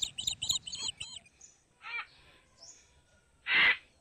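Birds calling: a quick run of high chirps that fades out about a second in, a shorter call near the middle, then one loud, harsh call about three and a half seconds in.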